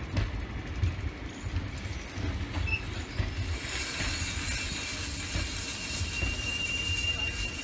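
Passenger train coaches rolling over the rails with a low rumble and occasional knocks. From about halfway a hiss builds, and near the end a high, steady squeal sets in as the train brakes on its arrival.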